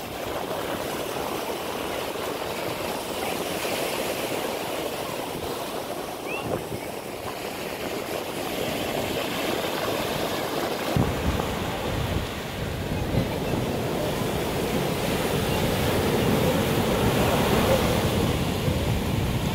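Surf: sea waves breaking and washing up the sand. From about halfway through, wind rumbles on the microphone.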